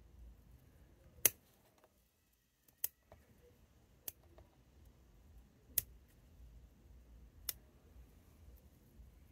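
Bonsai scissors snipping small shoots off a conifer: five sharp, crisp snips a second or two apart, one of them softer.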